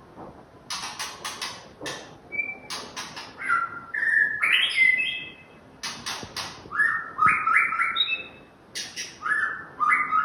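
White-rumped shama (murai batu) singing its varied song: bursts of harsh rattling notes alternating with clear whistled notes that step up and down, in quick repeated phrases, starting under a second in.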